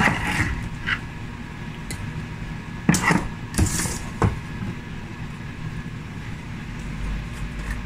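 Spice jars and a metal spoon being handled: a few sharp knocks and clinks as jars are set down and opened, the loudest about three to four seconds in, over a steady low kitchen hum.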